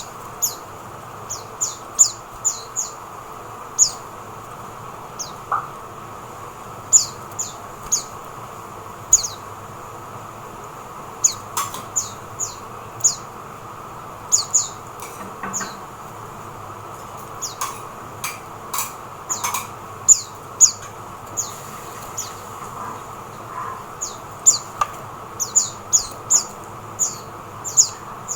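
Oriental white-eyes giving short, high, downward-sliding chirps, scattered irregularly and at times several a second, over a faint steady hum.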